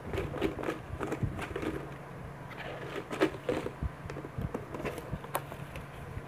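Blue plastic container shaken and handled for a raffle draw: scattered clicks, taps and rattles of the plastic box and lid and the folded paper slips inside, over a faint steady hum.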